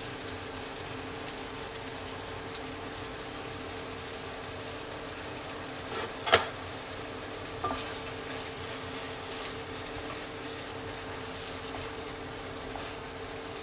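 Tomato sauce with scrambled egg and spring onion sizzling and simmering in a pan, over a steady low hum. One sharp clink of a utensil or plate against the pan about six seconds in, with a couple of lighter knocks around it.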